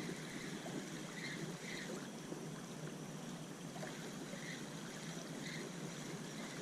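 Seawater lapping and trickling at the shoreline, a steady wash with faint short sounds every second or so.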